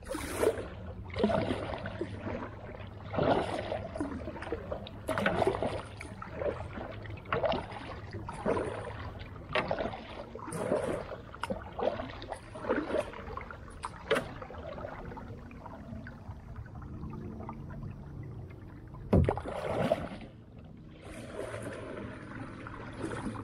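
Creek water splashing in a repeated rhythm, about one splash a second, sparser and quieter in the second half with a couple of last splashes near the end.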